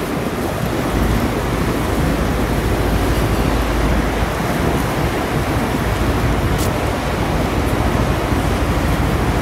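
Steady rushing noise of a passenger ferry's engine and churning propeller wash as it comes alongside a pier, with wind on the microphone. A deep rumble is strongest for a few seconds near the start.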